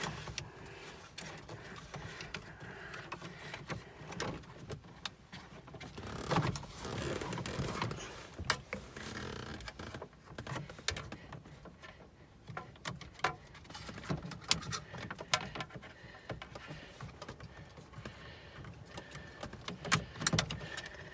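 Irregular plastic clicks, taps and scraping as the front cupholder unit of an Audi A2's dashboard is worked loose from its clips by hand and with tools.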